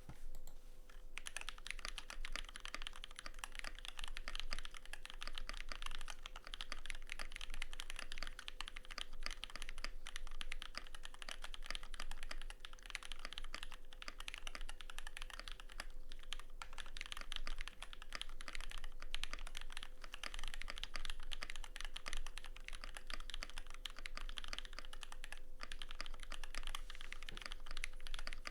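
Continuous fast typing on a custom Tofu96 mechanical keyboard with lubricated Holy Panda tactile switches, a brass plate, tape mod and GMK keycaps: a dense, rapid stream of keystroke clacks that begins about a second in.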